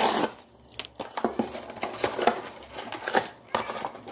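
A cardboard box and the plastic-wrapped packs inside it being torn open and handled: crinkling and rustling, with scattered light knocks on the countertop. The loudest rustle comes right at the start.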